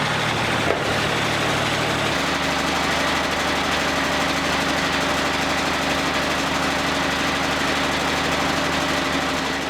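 Wood-Mizer LT40 Wide portable sawmill's diesel engine running steadily, its engine note changing about two seconds in.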